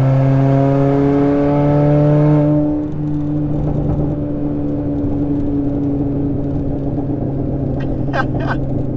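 Resonator-deleted exhaust of a 2016 Chevy Cruze, heard from inside the cabin: the engine drones as it pulls with its pitch slowly rising, then about three seconds in the throttle is lifted and the note drops to a lower, steady cruise. A few sharp clicks near the end.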